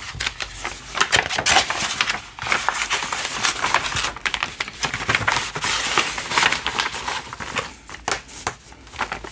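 Crinkling and rustling of a clear plastic bag as a cross-stitch kit's paper chart is handled and slid into it, a dense run of small crackles with a few louder bursts.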